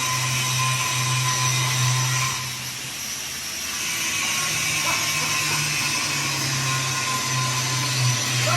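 A power tool motor running steadily, easing off for about a second near the middle and then picking up again.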